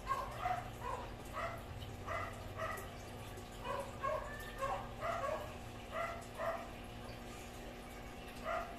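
A dog whining and yipping in short, high cries that come in irregular runs, with a pause of nearly two seconds before the last one, over a steady low hum.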